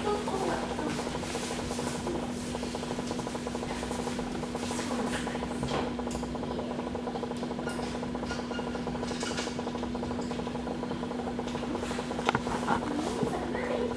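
Steady low electrical hum, with scattered soft rubbing and a few sharp clicks near the end as the groomer handles the dog on the grooming table.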